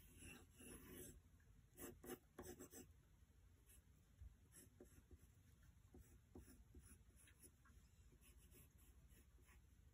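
Faint scratching of a pencil on paper in quick sketching strokes, louder over the first three seconds and lighter after that.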